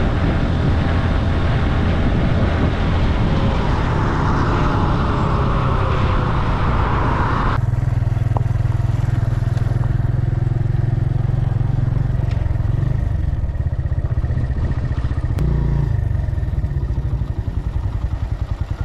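Motorcycle engine running at road speed with wind noise on the microphone. About eight seconds in it changes suddenly to a lower, slower engine note at low speed, and near the end it settles into an idle with an even beat.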